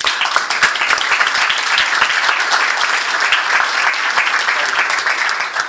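Audience applauding: many hands clapping together, loud and dense, fading out at the end.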